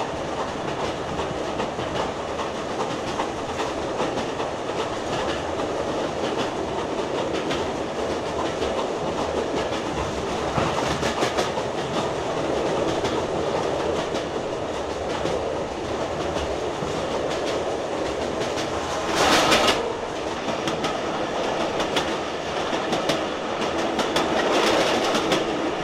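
HO-scale model trains running on the layout's track: a steady rolling rumble with quick clicks of wheels over the rail joints, and a brief louder rush about nineteen seconds in.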